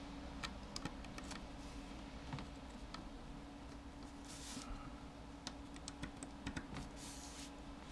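Faint, irregular small clicks and taps of a precision screwdriver and tiny screws against an iPhone 4's metal frame as the charging-port screws are driven in, with two brief soft scratchy rustles midway and near the end.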